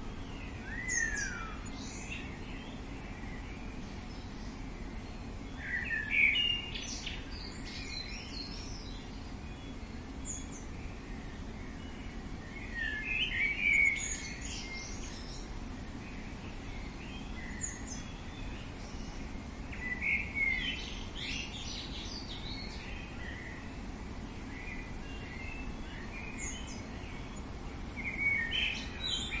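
Birds calling and chirping in short bouts every six or seven seconds, one a quick falling note, over a steady low background noise.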